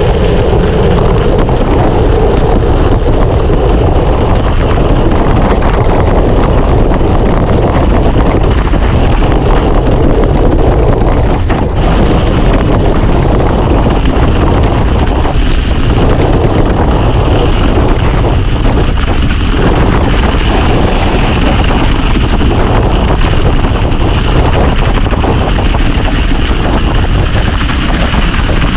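Wind buffeting a camera microphone during a mountain-bike ride, a loud, steady low rumble with rolling-tyre and trail noise underneath.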